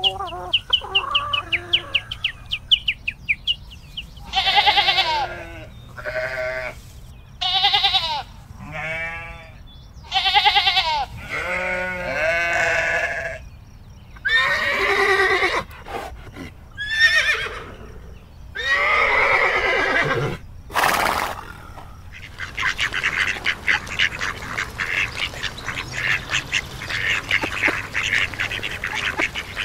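Farm animals bleating: a run of about ten long, wavering calls, one after another with short pauses between. Near the end they give way to a dense, rapid chatter of many short calls.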